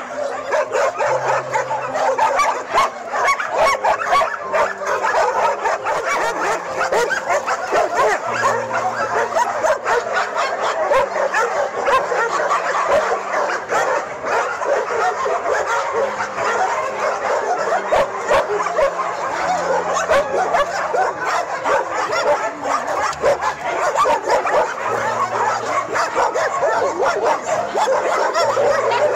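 A large pack of kennelled shelter dogs barking, yipping and whining all at once in a dense, continuous chorus that never lets up.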